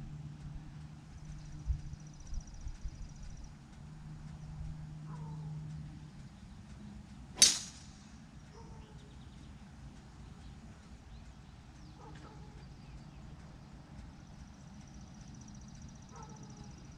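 A golf driver strikes a ball off the tee once, a single sharp crack about seven and a half seconds in. Birds chirp and trill around it against a low steady hum.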